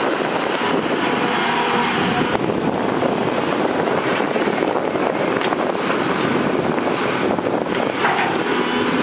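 Volvo EC480DL excavator's diesel engine running steadily under load while its bucket tips a load of earth into a steel dump-truck bed. Brief whining tones come in about a second in and again near the end.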